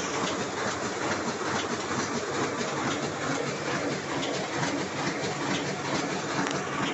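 Heidelberg Speedmaster offset printing press running steadily, its mechanism making a fast, even, rhythmic clatter over a constant machine noise.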